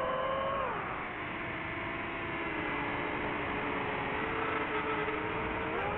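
DJI FPV drone's motors and propellers whining in flight. Several pitches drop together a little under a second in as the throttle eases, hold roughly steady, then climb again near the end.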